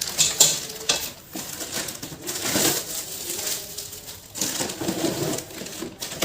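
Cardboard box and packing material rustling and scraping as the contents are pulled out, with a few light knocks.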